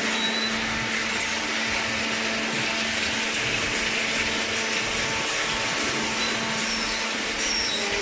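Hydraulic waste-paper baler running: its electric motor and hydraulic pump give a constant hum with a hiss over it.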